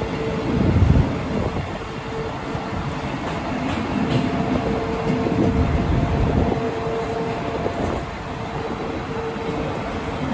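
Locomotive-hauled passenger train rolling slowly through a station, heard from an open coach window just behind the locomotive: a steady rumble with a humming tone that comes and goes.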